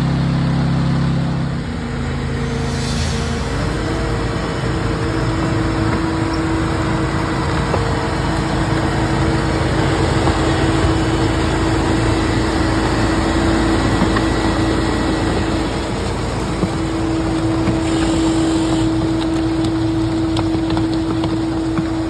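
Volumetric concrete mixer truck running while it produces concrete: steady engine and machinery noise. The sound shifts abruptly about two seconds in, and a steady whine joins about four seconds in.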